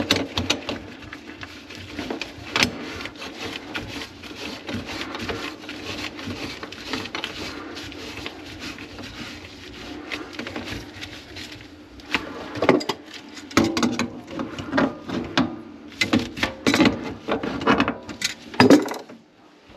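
Drain snake working through a grease-clogged kitchen sink drain line: a rapid, busy clatter of clicks over a steady hum, changing in the last several seconds to louder, irregular knocks and clanks.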